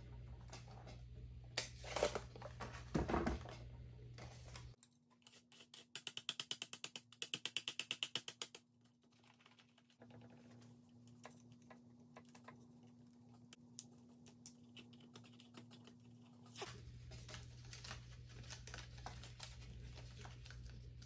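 Faint handling of cardstock and a metal cutting die on a clear cutting plate: paper rustling and being pulled free of the die, with small taps and clicks. There is a fast run of sharp clicks about six to eight seconds in.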